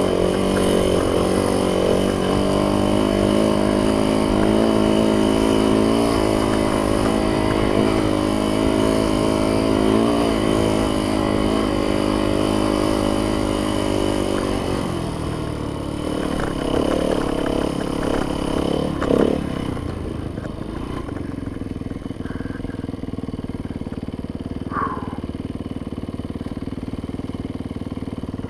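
Yamaha YZ dirt bike engine running under load as it is ridden, its note rising and falling with the throttle. About fifteen seconds in it drops to a lower, quieter running for the rest of the time.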